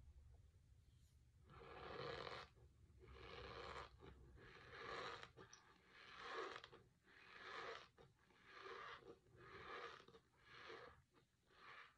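A mouthful of dry Argo cornstarch being chewed, squeaking and crunching between the teeth. There are about nine chews, roughly one a second, starting a second or so in.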